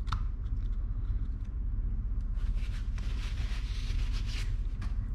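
Soft rustling and scraping of hands handling a baitcasting reel and tweezers on a silicone work mat, loudest from about two to four and a half seconds in. A small click comes at the start, over a steady low hum.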